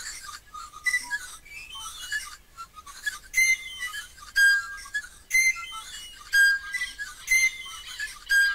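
A stone piloilo, the Mapuche pan flute, blown in short, shrill, breathy whistled notes, a quick run of varied notes at first, then strong blasts about once a second from about three seconds in.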